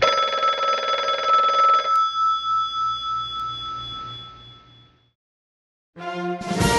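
A bell rings in a rapid trill for about two seconds, then its tone fades away over the next three seconds. After a second of silence, orchestral music with brass starts near the end.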